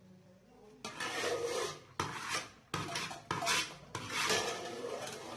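Metal spoon scraping and rubbing against a cooking pot in a run of rasping strokes while rice is spread and levelled in it.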